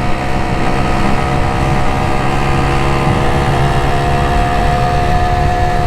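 Honda LS125R's single-cylinder two-stroke engine running steadily while the motorcycle cruises, its pitch edging up slightly about halfway through, over a low wind rumble.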